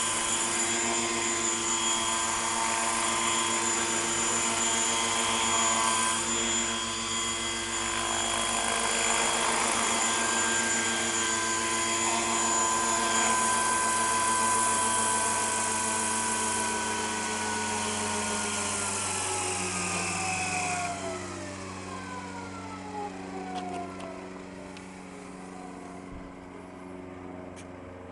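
Radio-controlled Hurricane 550 helicopter in an Agusta A109 scale fuselage, its rotors and drive running at a steady pitch, then winding down with a falling tone over the last third as it spools down.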